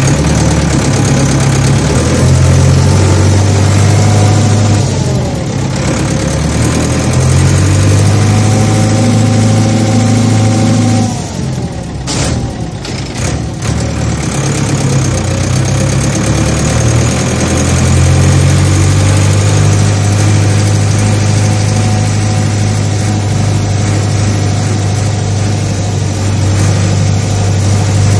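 Large farm machine's engine running steadily with a deep hum. The sound changes abruptly about 5 s in, and again around 11 s, where it briefly drops.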